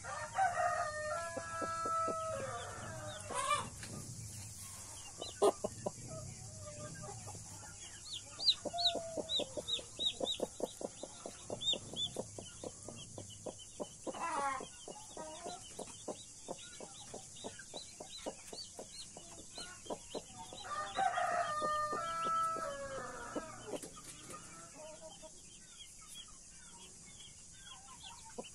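A rooster crows twice, once at the start and again about twenty seconds later, over hens clucking. In between comes a run of rapid, short, high peeps from the chicks.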